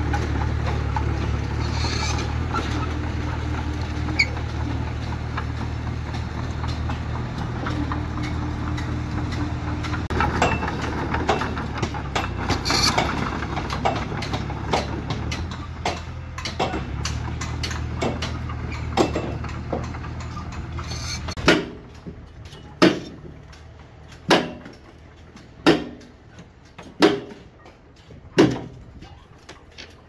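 Diesel engine of a small Komatsu crawler bulldozer running steadily, with a few clanks. About two-thirds of the way through it gives way to a series of six sharp knocks, about one every second and a half.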